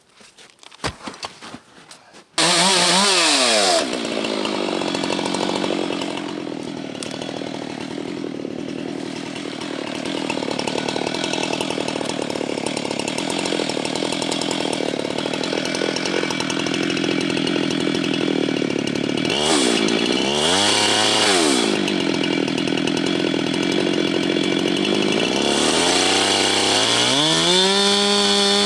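Husqvarna 390XP two-stroke chainsaw with a 37-inch bar ripping through wood at full throttle under load. It starts suddenly about two seconds in, its pitch sags and recovers briefly about two-thirds of the way through, and near the end it revs higher as the load eases.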